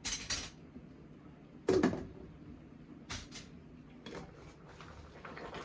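A few sharp clicks and knocks from dishes, utensils or doors being handled in a kitchen. The loudest is a knock about two seconds in, and a quick double click comes a little after.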